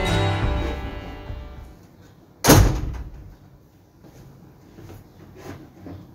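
Background music fades out, then a single loud slam about two and a half seconds in, ringing briefly in the room, followed by a few faint knocks.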